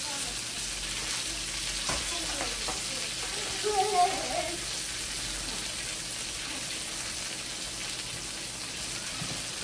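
Chicken breast strips sizzling in hot oil in a frying pan, a steady hiss. A couple of light clicks come about two seconds in, and a brief louder pitched sound near four seconds in.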